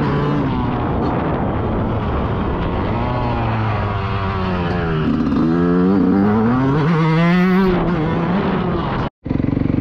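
Fantic 125 two-stroke motocross bike engine revving up and down repeatedly as it is ridden round a dirt track, heard from on the bike. Just after nine seconds the sound cuts out briefly and comes back as a steadier engine note.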